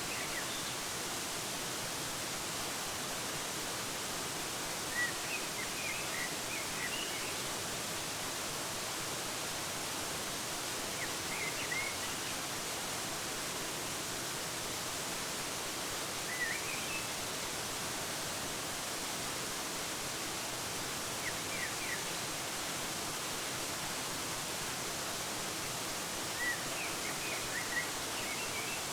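Steady rush of a waterfall, with a small bird giving short clusters of high chirps about every five seconds.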